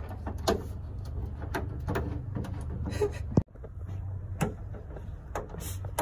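Scattered light clicks and taps of hands working fasteners on the underside of a car's trunk lid, over a steady low hum. The sound cuts out for an instant a little past halfway.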